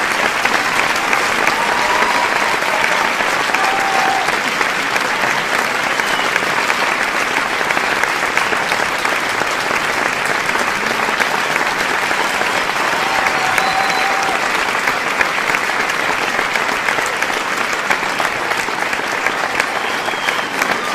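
A large audience applauding steadily and densely, with a few short cheers rising briefly above the clapping.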